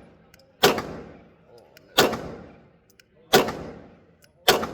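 Four evenly paced pistol shots from a 9mm Glock 47X, about 1.3 seconds apart, each trailing off in echo.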